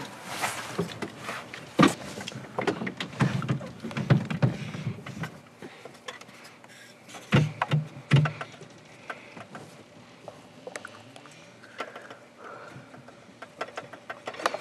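Handling noise from a camcorder held against clothing: rustling and scraping on the microphone with many small knocks, busiest in the first five seconds, a few heavier thumps around seven to eight seconds in, then fainter.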